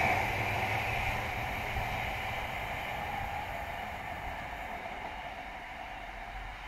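London Overground Class 710 electric multiple unit running away from the platform, its motor whine and wheel rumble fading steadily as it recedes.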